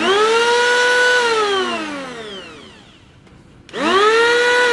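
Mollar CEP20600-U cordless electric planer run with no load. Its motor and cutter drum whine quickly up to speed, hold for about a second, then wind down in a long falling whine once the trigger is let go. It is started again near the end.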